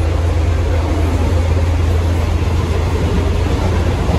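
Mumbai suburban local train running, heard from inside the carriage: a loud, steady low rumble with a rushing noise over it.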